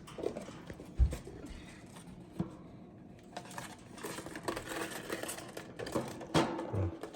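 Scattered light clicks, taps and rustling of things being handled, with a soft thump about a second in and another near the end.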